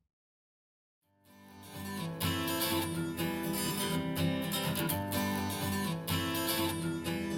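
Silence for about a second, then a song led by strummed acoustic guitar fades in, played back through an active bookshelf speaker and picked up by a recorder's microphone.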